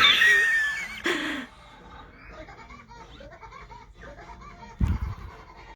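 Loud, high-pitched laughter for about the first second and a half, then quieter background sound, with a dull thump near the end.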